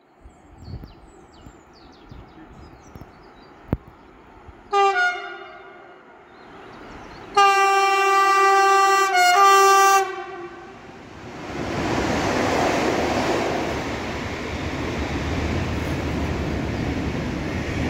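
TRAXX locomotive's horn sounds a short blast, then a longer blast of about two and a half seconds. The locomotive and its string of tank wagons then pass close by with a loud, steady rolling rumble.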